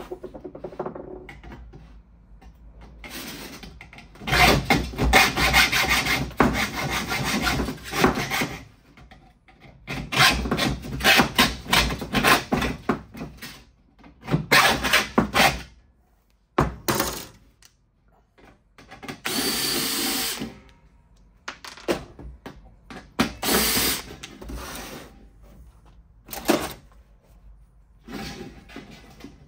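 Hacksaw cutting thin stainless steel sheet, in several bursts of rapid strokes with pauses between.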